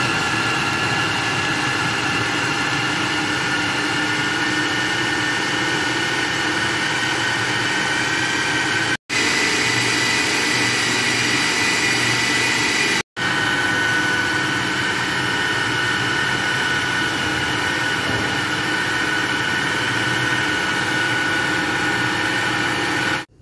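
Electric food processor motor running at speed, its blade mincing raw chicken with garlic and onion: a loud, steady whine that breaks off for an instant twice, about 9 and 13 seconds in, and stops just before the end.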